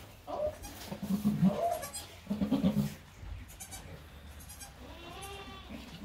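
Mother goat bleating to her newborn kids in short low calls, loudest about a second in and again about two and a half seconds in, followed near the end by a higher bleat that rises and falls.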